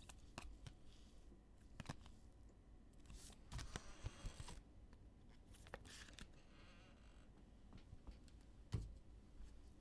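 Faint handling of trading cards: light clicks and rustles, with a louder papery rustle about three to four and a half seconds in.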